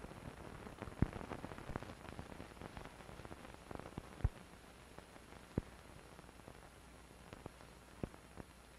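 Faint steady hiss with scattered, irregular sharp clicks and pops, the crackle of an old film soundtrack.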